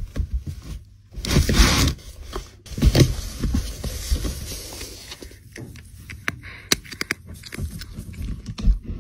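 Cardboard box scraping and knocking irregularly as a cat shifts about inside it, with a longer scrape about a second and a half in.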